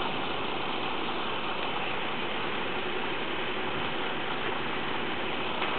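Machinery running steadily during the ferry launch, a continuous mechanical noise with no distinct knocks or changes.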